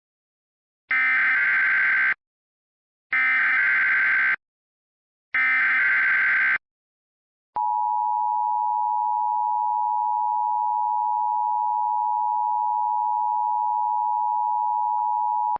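Emergency Alert System tones: three short bursts of SAME digital header data about a second apart, then the steady two-tone EAS attention signal held for about eight seconds.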